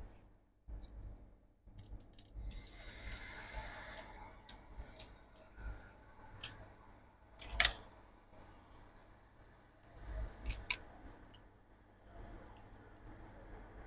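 Handling noise as a MacBook Pro logic board is set back into its aluminium case and pressed into place: scattered light clicks and taps, the sharpest about seven and a half seconds in and a few more around ten seconds.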